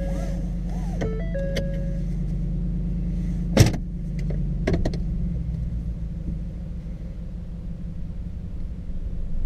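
Ford F-150's 5.0 V8 idling, heard from inside the cab with its Flowmaster 50 HD Delta Flow muffler, while a dashboard chime repeats for the first two seconds. About three and a half seconds in comes a sharp clunk as the column shifter is pulled into gear, then two lighter clicks a second later.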